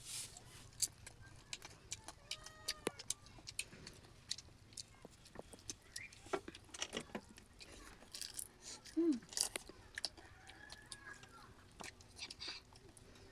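Close-miked eating: irregular wet chewing, crunches and mouth clicks, with a brief pitched sound about nine seconds in.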